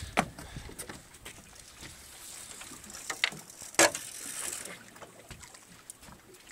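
Faint steady wash of water and wind around a small fishing boat, with a few sharp knocks on deck, the loudest about four seconds in.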